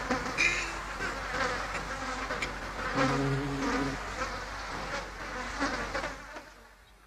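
Cartoon sound effects of many insects buzzing and chirping together, with a low, drawn-out buzz about three seconds in, all fading out near the end.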